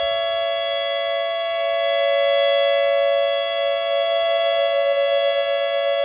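Federal Signal Modulator 8032B electronic outdoor warning siren sounding its steady Alert signal with the "ThunderMod" tone: a loud, held chord of several pitches that does not rise or fall.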